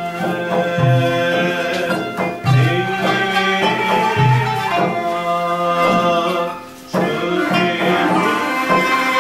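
Traditional Sufi sema music for the whirling dervish ceremony: sustained melodic lines over a slow, steady frame-drum beat, with a brief pause about seven seconds in.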